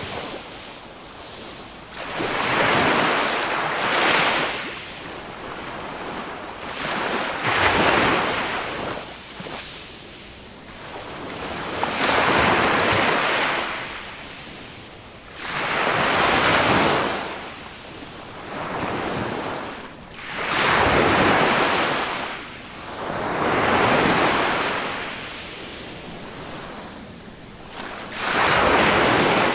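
Small waves of a calm Mediterranean sea breaking and washing up the shore. Each break swells and fades as a hiss, about one every three to four seconds.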